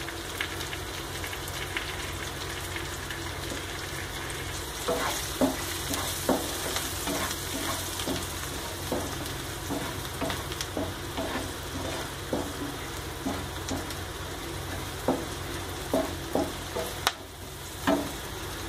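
Chopped shallots, dried red chillies and curry leaves sizzling in hot oil in a non-stick frying pan. From about five seconds in, a spatula scrapes and taps against the pan in irregular stirring strokes.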